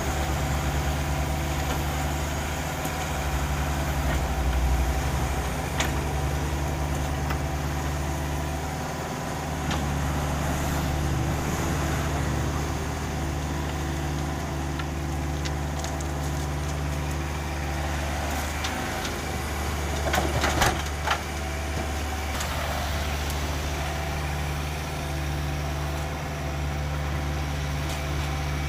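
Cat 305.5E2 mini excavator's diesel engine running steadily as it digs, with scattered clanks and knocks from the work, the loudest cluster about two-thirds of the way through.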